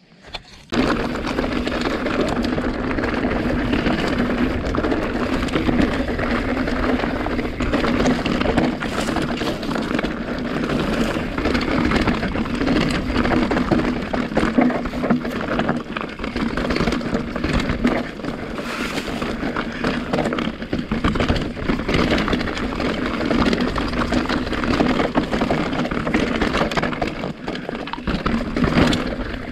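Orbea Occam full-suspension mountain bike descending a rocky trail at speed: tyres crunching over loose stones and rock, with the bike rattling and wind noise on the camera microphone. It starts abruptly just under a second in and stays loud and steady.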